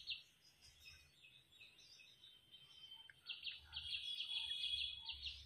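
Cockatiel chirping softly: after about three seconds of near quiet, a quick run of high twittering chirps.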